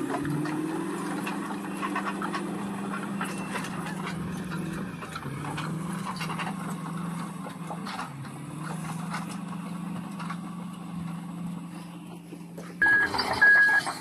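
Caterpillar D9R bulldozer's diesel engine running steadily under load, its pitch shifting slightly a couple of times. Near the end the sound gets louder and a reversing alarm starts beeping, about two beeps a second.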